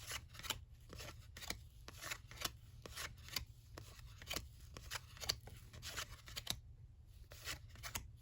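Cardboard trading cards being flipped through and set down one at a time: light clicks and flicks, two or three a second, with a short pause about seven seconds in.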